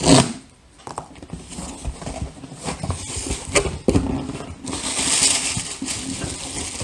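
Cardboard subscription box being opened and its contents handled by hand: irregular knocks and clicks of the flaps and items, with a longer rustle about five seconds in.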